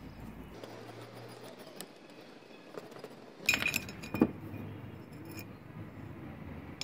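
Metal clinking about halfway through, then one sharp clink a moment later: a rusted wheel from an old foot air pump knocking against its steel axle rod as it is slid along and off the rod.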